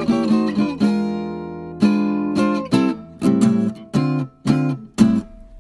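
Background music: acoustic guitar picking a run of notes, then a few short, separated plucked chords near the end.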